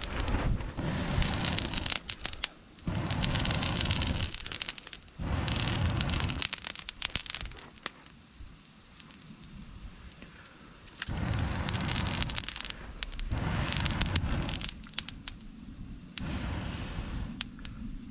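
Air blown through a long metal blow pipe into a wood fire: a series of blasts of rushing noise, each one to three seconds long, stirring the fire and throwing sparks. A lull of a few seconds in the middle leaves the fire's quieter crackle.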